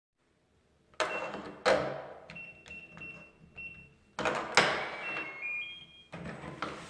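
Electronic keypad door lock on a front door: two sharp clacks, then four short beeps as number keys are pressed. Two loud mechanical clunks follow, then a short beeping tune rising in pitch as the lock releases, and another clunk near the end.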